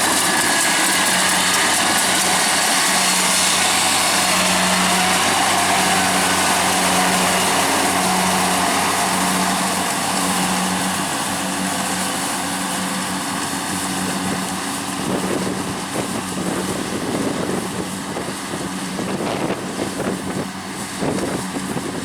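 Kubota DC70 combine harvester's diesel engine running steadily under load while it cuts rice, a loud, even drone. It grows somewhat quieter and more uneven in the second half.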